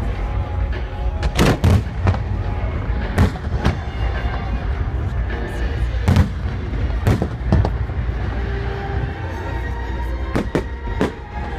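Fireworks display: aerial shells bursting with about ten sharp bangs at irregular intervals, some in quick pairs, over music playing throughout.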